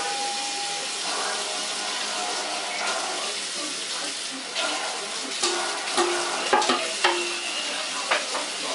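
Tap water running steadily into a sink while a wet wig is rinsed and brushed, with several sharp knocks and clatters in the second half.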